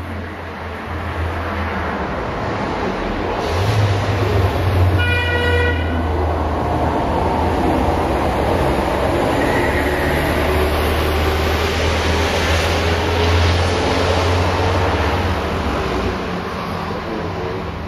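Loud rushing vehicle noise from a television soundtrack, building up and holding, over a steady low hum, with one short horn toot about five seconds in.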